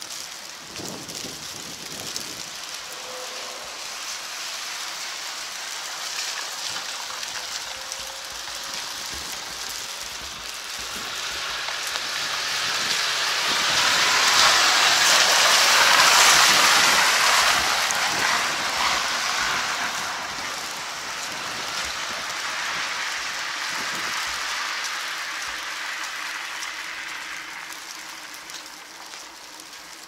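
An SUV driving past close on a wet road: its tyre hiss on the wet tarmac swells to a peak about halfway through and then fades away. Under it runs a steady hiss of the wet street in falling wet snow.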